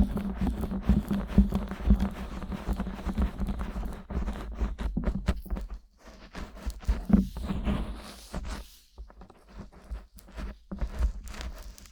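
Fingers rubbing, scratching and pressing on the silicone ears of a 3Dio binaural microphone, close-up rustling with many soft thumps, easing off briefly twice.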